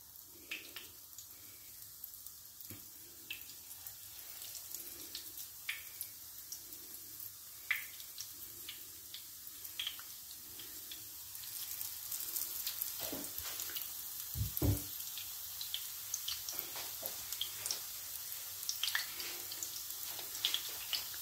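Breaded porcini pieces frying in hot oil in a pan: a sizzle with scattered crackles and pops that gets louder about halfway through. Two low thumps close together come a little after the middle.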